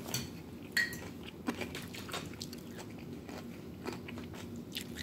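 Chewing a mouthful of crunchy fried taco shell, with scattered small crunches and a brief clink about a second in.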